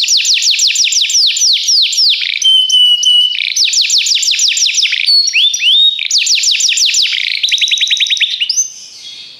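Domestic canary singing a long song of fast trills, each a rapid run of falling notes, with a steady held whistle about two and a half seconds in. The song stops shortly before the end.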